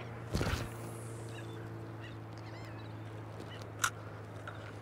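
A steady low hum runs throughout, with faint high chirps in the middle. A knock comes about half a second in and a sharp click just before four seconds.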